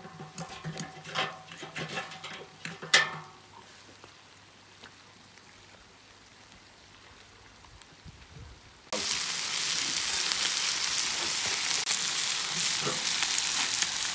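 Food frying in a large paella pan: a spatula scrapes and knocks in the pan for a few seconds, ending in one loud clack, then it goes quieter. About nine seconds in, a loud, steady sizzle starts suddenly.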